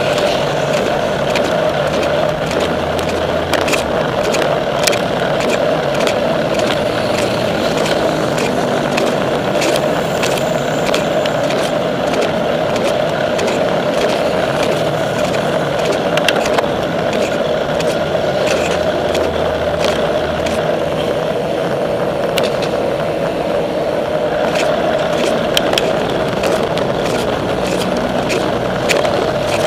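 Steady rolling road and wind noise picked up by a camera riding on a moving bicycle, with frequent small clicks and rattles as the bike goes over the road surface.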